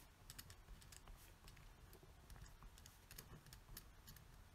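Faint scratching and ticking of a pen writing on a paper pad: short, irregular strokes several times a second.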